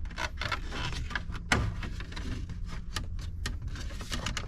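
Plastic dash bezel and trim being handled and fitted: scattered clicks and small knocks, one sharper knock about a second and a half in, over a steady low hum.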